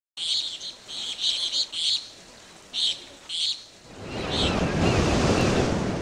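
Small birds chirping in short repeated bursts. About four seconds in, a rushing wash of ocean surf swells up and stays loud.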